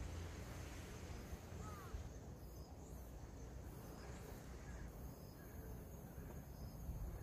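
Faint outdoor ambience: a steady low rumble with a few short, faint high chirps.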